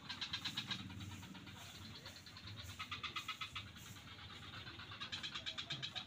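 Swamp frogs calling in three bouts of rapid pulsed notes, about a dozen pulses a second, each bout lasting about a second and coming every two and a half seconds or so.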